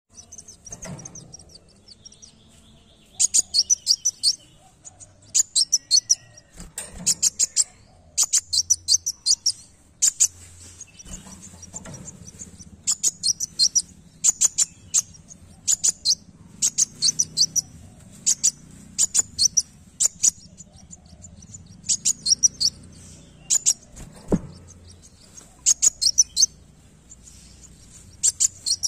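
Kolibri wulung, a sunbird, singing in bursts of rapid high-pitched chirps, each burst under a second long and repeated every second or two from about three seconds in.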